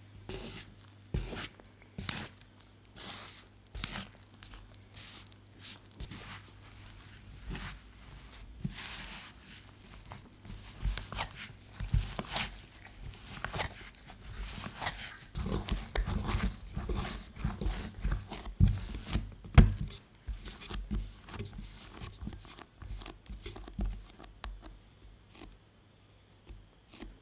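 Bread dough being mixed and kneaded by hand in a wooden bowl: irregular squishing and slapping as the flour and liquid come together, with heavier thuds of the dough pressed against the bowl in the middle part.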